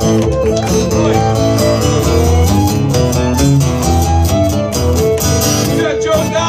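Live band playing an instrumental break with no vocals: acoustic guitars strumming over a fiddle playing held notes, at a steady loud level.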